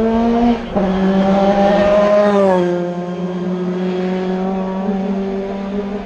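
Hillclimb race car engine at high revs with a quick upshift about half a second in. The note climbs, drops sharply about two and a half seconds in as the car passes, then holds a steady lower tone as it goes away.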